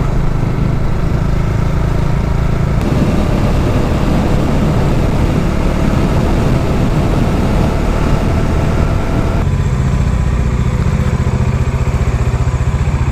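Motorcycle engine running steadily while riding, with road noise. Its sound shifts about three seconds in and again about two-thirds of the way through.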